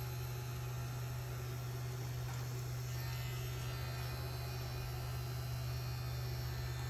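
Small electric herb grinder's motor running, a steady low hum as it spins its blade through parsley.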